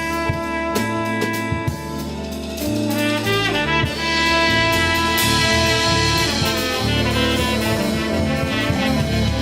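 Instrumental music: a bass line stepping under held horn-like notes, with drums keeping time.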